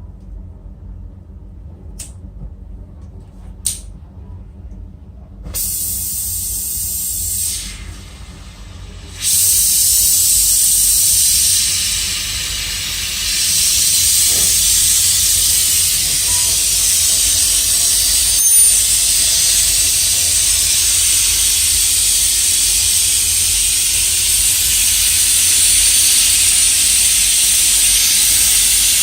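Gas brazing torch hissing steadily at the compressor pipe joints. It starts about five seconds in after a few sharp clicks, cuts out briefly, then comes back and holds.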